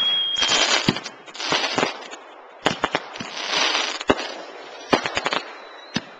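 Aerial fireworks going off. A high whistle falling in pitch dies away in the first second, then comes a run of sharp bangs and three bursts of dense crackling; the crackle is loudest a little past the middle.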